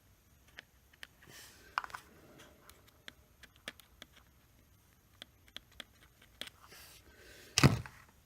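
Small plastic and metal clicks and scrapes from handling a FarmerTec MS200t chainsaw's choke control and linkage, with one louder knock near the end.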